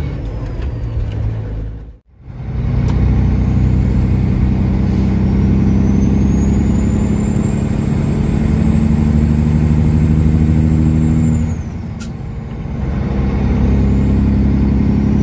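Kenworth W900 semi truck's diesel engine running steadily as the truck drives down the highway, after a brief gap about two seconds in. A high thin whine rises and then holds over the engine sound, fading out about eleven seconds in.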